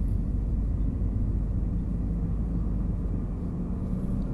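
Steady low rumble of a car heard from inside the cabin, the road and engine noise of the car in motion.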